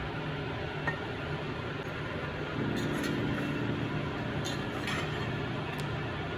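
A steel spoon clinking and scraping against the inside of a pressure cooker pot as chicken curry with potatoes is stirred. There are a few sharp clinks over a steady hiss.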